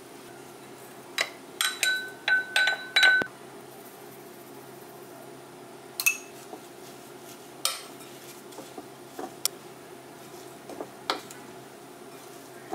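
Kitchen utensils clinking and tapping against a glass mixing bowl of grated zucchini: a quick run of clinks with a brief glassy ring about a second in, then a few scattered light knocks.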